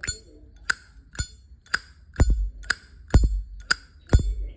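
Zippo lighter's hinged lid being flicked open and snapped shut over and over, about two sharp metallic clicks a second, each with a brief bright ring; a few of the strokes land with a heavier thud.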